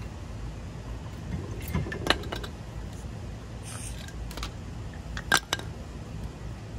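Hand tools clinking and knocking against a car's front brake parts and on the ground: a few scattered sharp metallic clicks, the loudest about two seconds in and again just past five seconds, with a brief scrape in between, over a steady low hum.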